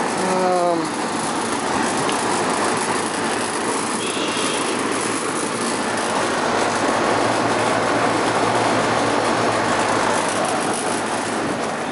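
Outdoor unit of a 1992 Janitrol 4-ton heat pump running: a steady rush of air from the condenser fan over a low, even compressor hum.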